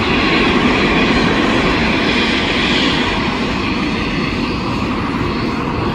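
Loud, steady jet roar from a four-engine Airbus A380 at takeoff power, rolling down the runway for departure.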